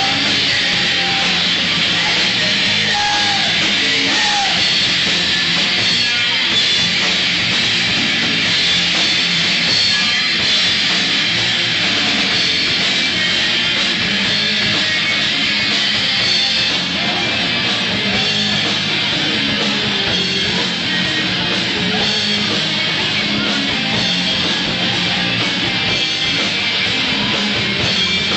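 Live rock band playing loud, dense heavy rock without a break.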